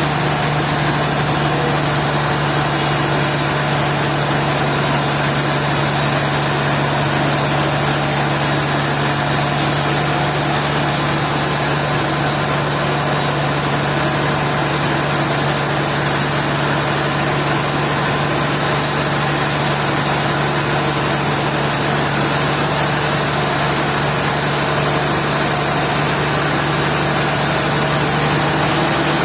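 Sawmill machinery running steadily: a constant engine-like hum with an even noise over it, unchanging in pitch and level.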